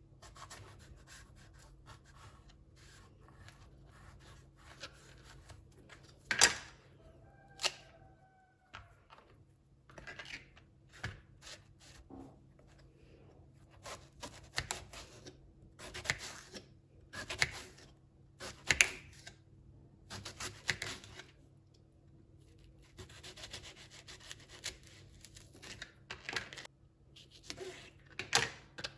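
Household handling noises: irregular light knocks, taps and rubbing scrapes, the loudest knocks about six seconds in and again a little past the middle, with a brief ringing note after the first. A faint steady hum runs underneath.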